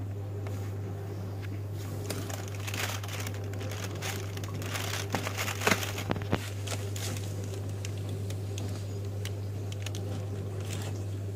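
Cardboard doors of a Maltesers Merryteaser chocolate advent calendar being pried open and the foil behind them crinkling: irregular crackles and rustles, loudest about halfway through. A steady low hum runs underneath.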